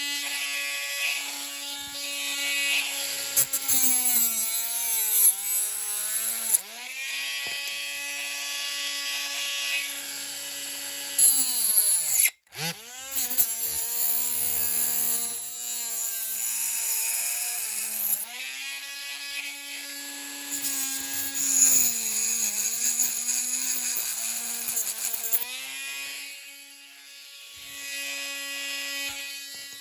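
Small handheld rotary tool running with a steady whine, its pitch sagging again and again as it bites into the plastic interior of a diecast model car, cutting away the passenger seat. It dips sharply about twelve seconds in and winds down near the end.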